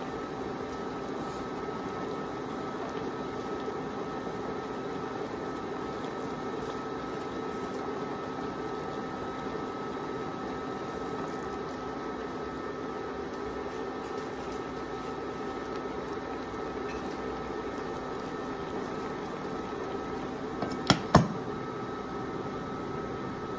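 Induction cooktop running with a steady hum of a few fixed tones under a wok of crabs. About 21 seconds in, two sharp clacks as the glass lid is set on the wok.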